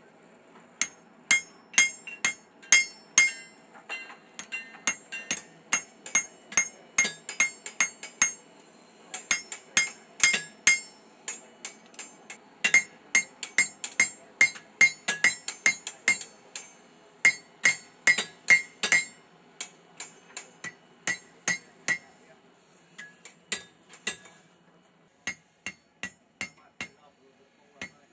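Hand hammer striking a red-hot 1084 carbon-steel knife blade on an anvil, about two to three ringing blows a second, in runs with short pauses between them. The blows come more sparsely near the end.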